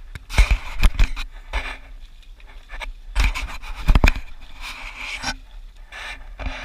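A hooked bass splashing and thrashing at the surface while being played in, in several loud irregular bursts, the biggest about half a second to a second in and again around three to four seconds in.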